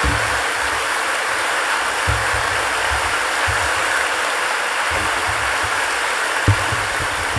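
A large hall audience applauding steadily, with a couple of low thumps near the end.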